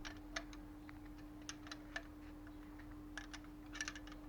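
Scattered light metallic clicks and taps of wrenches on a bicycle's nuts and bolts as they are loosened, with a quick run of clicks near the end, over a faint steady hum.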